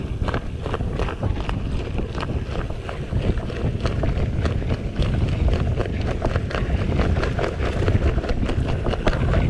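A mountain bike rolling downhill on dirt on a punctured, underinflated tyre, knocking over and over in a "krok krok krok" as the soft tyre lets the rim strike the ground. Wind rumbles on the microphone throughout.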